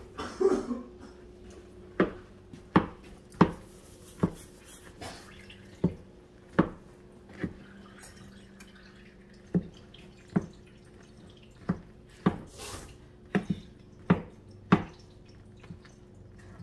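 A spoon clicking against a small pot over and over, about once a second at an uneven pace with a short pause midway, as marshmallows and butter are stirred while they melt.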